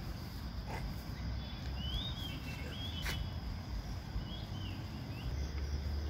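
Short chirping bird calls, a few rising-and-falling notes in the middle, over outdoor ambience with a steady low rumble and a steady thin high-pitched hum.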